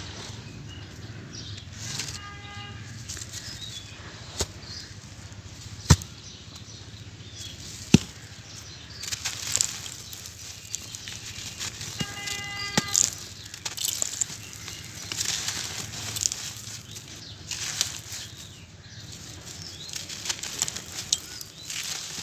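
Dry, gritty sand lumps crunching and crumbling in bare hands, with grains and dust pouring and rustling down onto a sandy floor. A few sharp cracks stand out as lumps snap, the loudest about six and eight seconds in.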